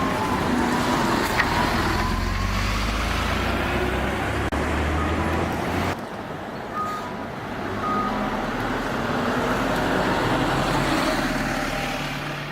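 City bus engine running amid traffic noise. Its turn-signal warning chime sounds in short high tones about a second apart in the second half.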